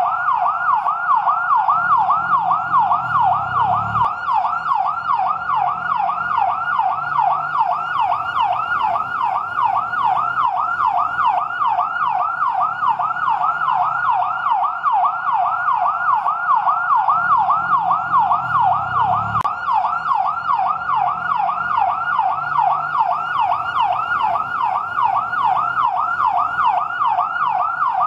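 Fire truck yelp siren, its pitch sweeping quickly up and down over and over, about three cycles a second. A low rumble underneath swells and cuts off twice.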